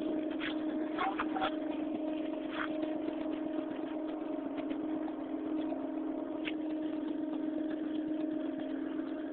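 Steady mechanical hum of a running motor or engine, holding one even pitch, with a few faint clicks in the first few seconds.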